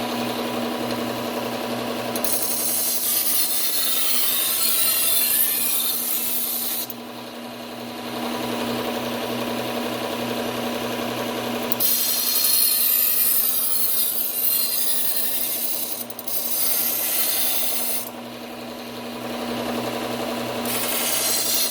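Bucktool slow-speed belt sander running with a steady hum while a kitchen knife blade is ground against its Cubitron P120 abrasive belt in several passes, each a rasping hiss lasting a few seconds. This is the coarse profiling and apexing stage of the sharpening.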